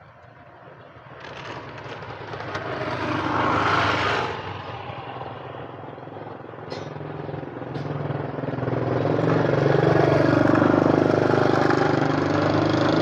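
Motor vehicle engines close by: one swells and passes about four seconds in, then a steady engine hum grows louder and keeps running through the second half.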